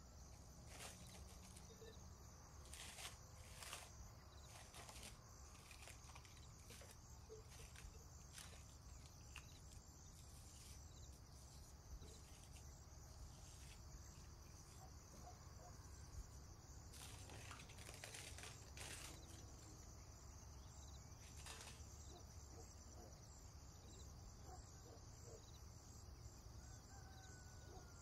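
Near silence: faint room tone with a steady low hum and a few soft clicks.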